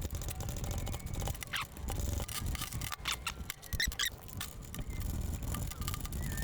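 Hand tools working on motorcycle engine-mount bolts: scattered metal clicks and knocks, with a few short squeaks.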